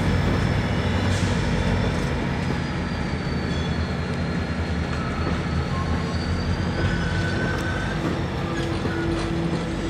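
Rocky Mountaineer passenger train rolling slowly past behind its GP40-2 diesel locomotives: a steady low rumble, with thin high wheel squeals now and then, the longest from about seven seconds in.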